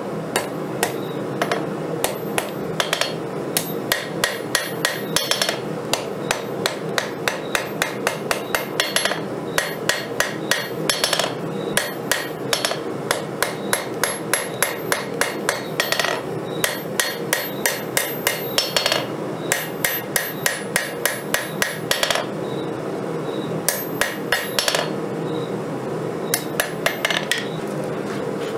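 Steel being forged with hammer blows on 5160 steel at the anvil. The ringing strikes come in steady runs of about three a second, with a couple of short pauses near the end, over a constant background rush.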